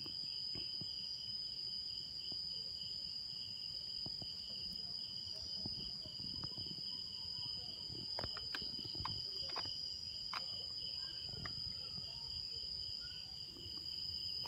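Night insects singing in a steady, unbroken high trill made of two continuous tones. Faint low rumble and a few soft clicks sound under it.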